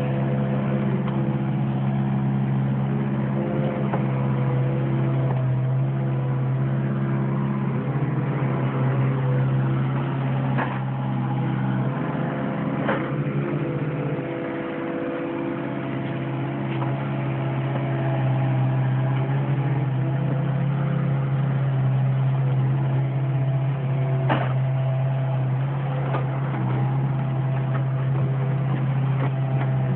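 Mini excavator's diesel engine running steadily at a constant speed, a little quieter for a moment about halfway through, with a few sharp knocks over it.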